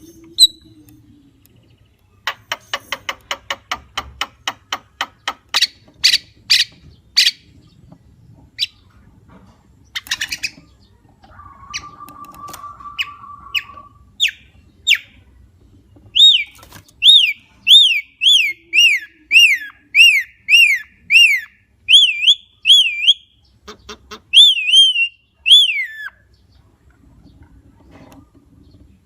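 Javan myna calling: a fast rattling series of clicks, a few loud sharp notes, a held whistled tone, then a long run of loud, repeated swooping whistles.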